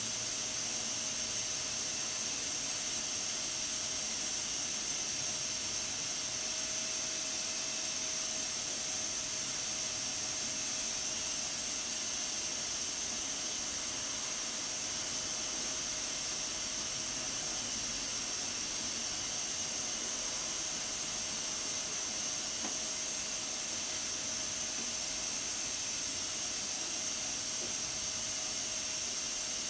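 Pressure cooker under pressure, venting steam through its weighted valve with a continuous, steady high hiss. A faint thin tone sits under the hiss at times.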